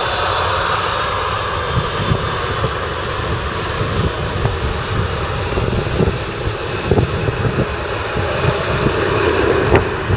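Boeing 737's CFM56 jet engines running steadily at taxi idle as the airliner taxis, with a faint high whine near the start. Gusty wind buffets the microphone underneath.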